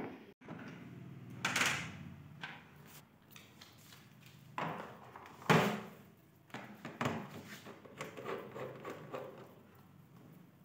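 A few knocks and clunks from handling the plastic back of a flat-screen TV and its stand parts while the stand is being fitted, the loudest about five and a half seconds in.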